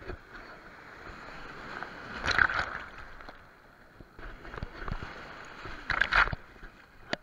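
Sea surf washing and splashing right over a camera held at water level, with two louder splashes about two and a half and six seconds in.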